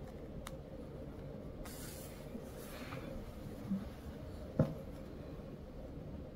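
Fabric handled by fingers as it is pinched into pleats: a soft rustle about two seconds in, with a faint small click before and after it.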